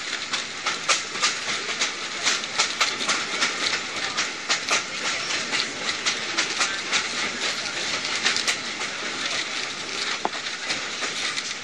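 Passenger train rolling along the track, heard from aboard a railcar: a steady rushing noise with frequent irregular clicks and clacks of the wheels on the rails.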